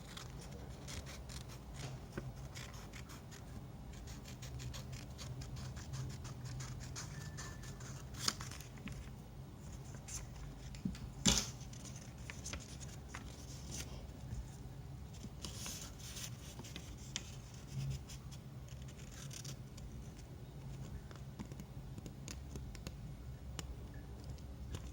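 Small sheet of paper being worked by hand, with scattered short rustles and crisp clicks, the sharpest about 11 seconds in, over a steady low hum.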